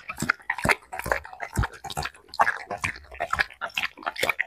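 A dog eating noodles from a bowl: quick wet lapping and smacking sounds, about four a second.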